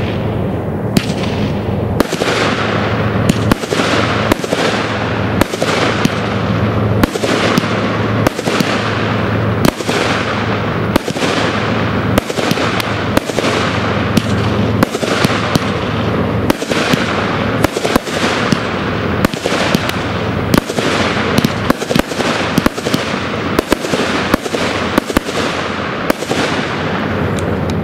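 Pyro King 'Buck Fever' 25-shot firework cake firing its shots in quick succession, sharp reports about once a second over a steady hiss of burning effects.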